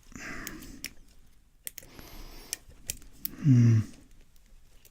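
Small sharp clicks and light scraping of a lock pick and tension wrench working the pins of a Cisa five-pin padlock. About three and a half seconds in, a brief voiced sound falls in pitch.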